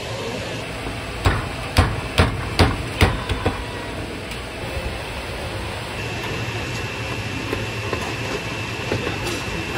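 A cleaver chopping on a cutting board at a food stall: five loud chops about half a second apart a little after the start, then a few lighter ones, over a steady background hum.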